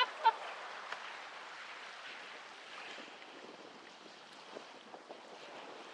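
Wind and choppy water washing against a kayak, a steady rushing noise, with a few faint knocks.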